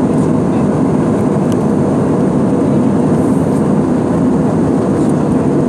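Steady, loud drone of a jet airliner in flight, heard from inside the passenger cabin: the engines and the rush of air along the fuselage blending into one even, low roar.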